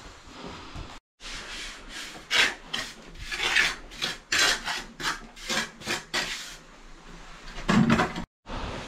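A trowel scraping and spreading fresh mortar into a patched hole in a concrete floor: a run of rasping strokes, about three a second, with a louder scrape near the end.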